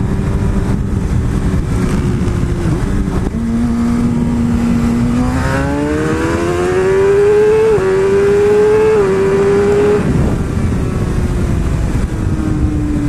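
Sport bike engine pulling hard and shifting up: its note drops at each upshift, about three, eight and nine seconds in, climbs again, then eases to a steady cruise near the end, over heavy wind rush from riding.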